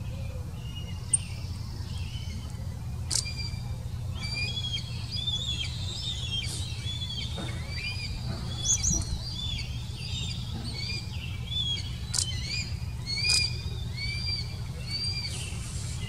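Bald eagles calling at the nest: many short, high chirping notes in quick runs, thickest in the middle, over a steady low rumble.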